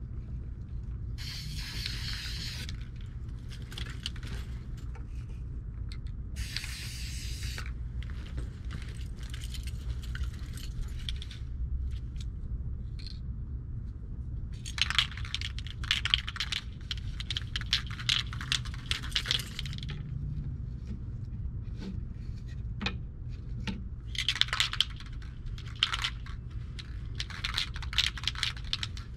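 Aerosol spray-paint cans: several short hissing bursts of spray, mixed with quick metallic rattling and clicks of the can's mixing ball and of the cans being handled, over a steady low rumble.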